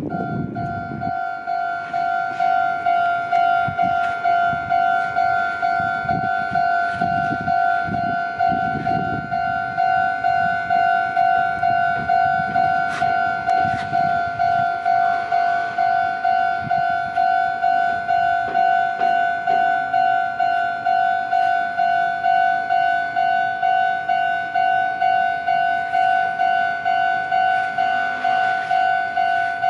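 Japanese railway level crossing's electronic warning bell ringing, a single-pitched clang repeating steadily at about two strokes a second: the crossing is active, signalling that a train is approaching.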